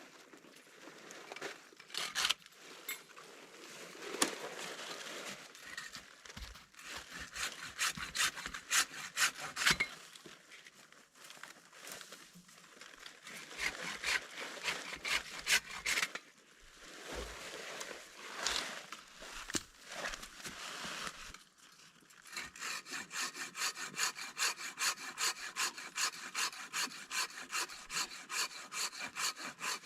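Repeated rasping strokes, irregular at first, then settling into a steady rhythm of about two strokes a second for the last several seconds.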